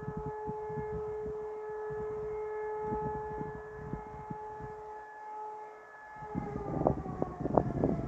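Civil-defence warning siren sounding a steady single tone for a monthly test alarm, then falling in pitch as it winds down about six to seven seconds in. Wind gusts buffet the microphone and grow stronger near the end.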